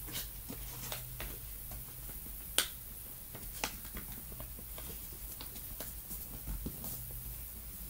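Origami paper being folded and flattened by hand, giving scattered crisp clicks and crackles of the creasing paper. The loudest comes about two and a half seconds in.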